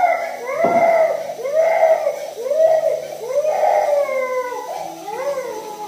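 A toddler crying, a run of short rising-and-falling wails of "ah, ah" about one a second, tailing off quieter near the end.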